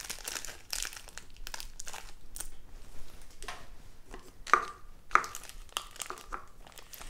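A small plastic sachet of slime powder crinkling as it is torn open by hand, with a couple of sharper plastic clicks about four and a half and five seconds in.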